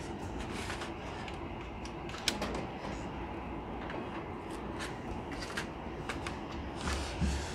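Handling noises from a slim external disc drive and a laptop on a wooden bench: a sharp click about two seconds in, scattered light clicks and rubs, and a dull thump near the end, over a steady low hum.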